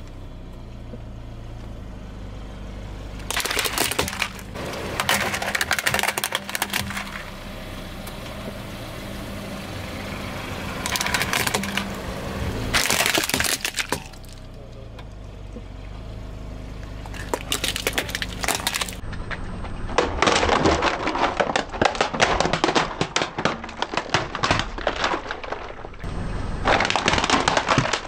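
Hard plastic toy parts and toy building bricks cracking and snapping under a car tyre, in repeated bursts of dense crackling, the longest in the second half, over a low steady hum.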